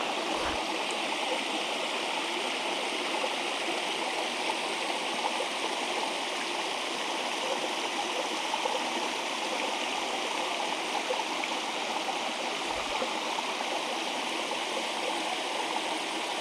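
Small waterfall splashing steadily, a continuous even rush of falling water.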